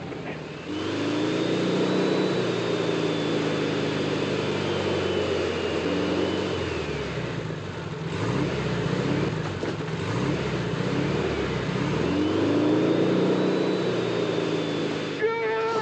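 Small car's engine revving hard, its pitch rising and falling again and again, with a thin high whine following the revs.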